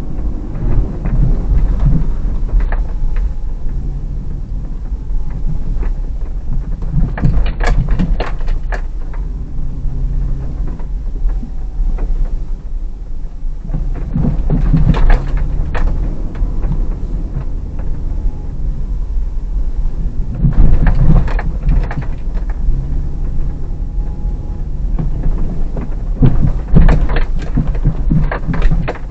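Hyundai Terracan's 3.5 V6 engine and tyres on packed snow, heard from inside the cabin as a steady low rumble. Short bursts of knocking and rattling come about every six seconds.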